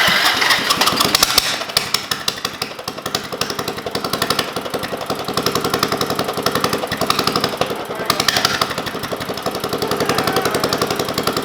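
Small single-cylinder lawn mower engine running after reassembly, with a rapid, even chug of firing strokes.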